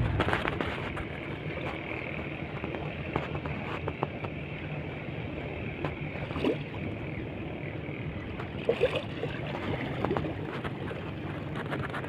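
Steady low hum of a boat's motor under wind noise, with a few light knocks about six and nine seconds in.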